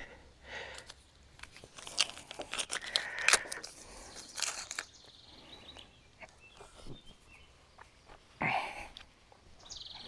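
Scattered light crunches, clicks and rustles of footsteps and of hands handling a broken rubber V-belt, busiest in the first half, with a brief louder scrape near the end.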